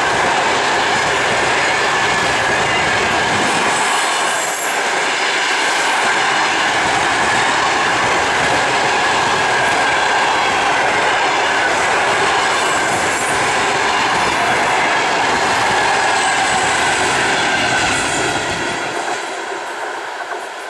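Passenger coaches of an express train rolling past at speed: a steady rumble and clatter of wheels over the rails, with a high squealing tone from the wheels. Near the end the sound drops away as the last coach recedes.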